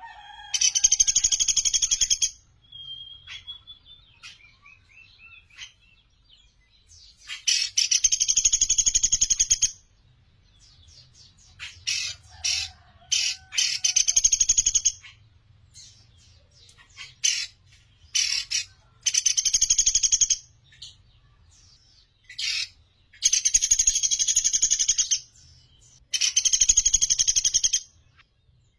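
Pelatuk beras, a small woodpecker, calling from its cage: a long, rapid, high trilling call of one to two seconds, repeated about six times, with short sharp single notes in between.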